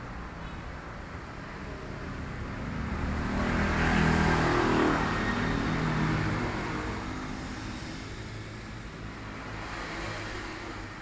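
A motor vehicle passing by: its engine grows louder to a peak about four seconds in, then fades away, with a smaller swell near the end.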